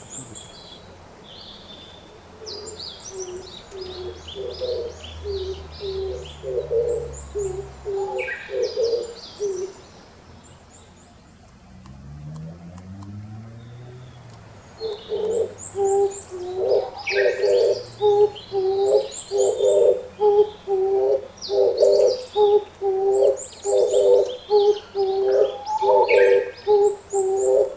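Oriental turtle dove singing its low, hooting coo, faint at first and then, from about halfway through, a loud, even run of coos, with high chirps of small birds over it.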